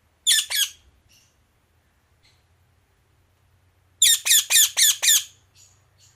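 Indian ringneck parrot squawking: two loud, shrill calls near the start, then a quick run of about five more a few seconds later, with a few faint chirps between.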